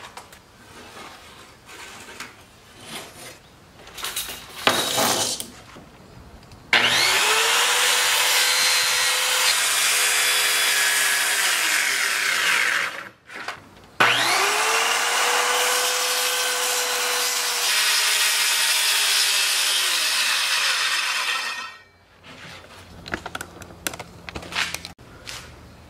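Corded circular saw cutting a sheet of plywood in two long passes, each starting as the motor whines up to speed and lasting six to eight seconds, with a short break between them. Before the first cut there are scattered knocks and scrapes of the plywood being handled on the sawhorses, and a few faint clatters follow the second cut.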